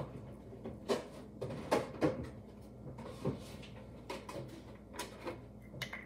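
Scattered light knocks and clunks of kitchen things being handled and set down, about eight short hits spread irregularly.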